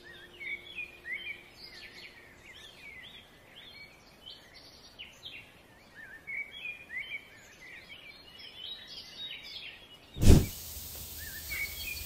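Songbirds calling and singing in woodland, many short chirping notes overlapping. About ten seconds in, a sudden loud thump, followed by a steady rushing noise under the bird calls.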